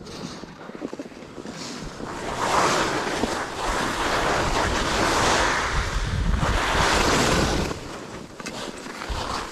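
Skis scraping and chattering over icy, hard-packed snow through a series of turns, mixed with wind rushing over the microphone. The scrape grows loud about two seconds in and swells with each turn, roughly every two seconds, easing off near the end.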